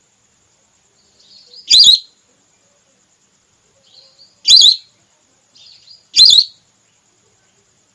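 Whistling duck (belibis) calls from a hunting lure recording, given as the female's call: three loud, short, high whistled calls, each led in by a softer note.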